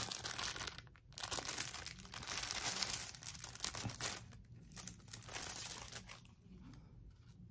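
Clear plastic product bag crinkling as it is handled and pulled open by hand, dying away about six seconds in.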